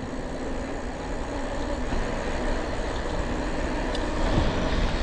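Steady rush of wind on the microphone of a camera riding along on a moving bicycle, with no engine tone in it.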